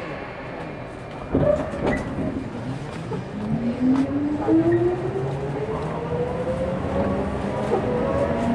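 Hokuso Railway 9000 series electric train pulling away from a station, heard from inside the car. The traction motors start a little over a second in, and their whine rises steadily in pitch as the train gathers speed.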